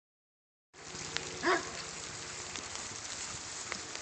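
A dog gives one short bark about a second and a half in, over a steady crackly hiss of outdoor noise on a phone microphone.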